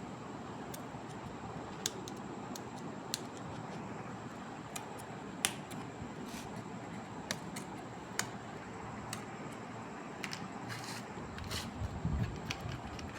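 Hands working with small craft materials: irregular sharp clicks and light taps, about one a second, over a steady hiss, with a few soft thumps near the end.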